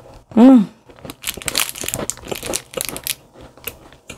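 A short hum from the eater that rises and falls in pitch, then the foil wrapper of a Rokkatei raisin butter sandwich cookie crinkling in the hand for about two seconds, with a few more faint crackles near the end.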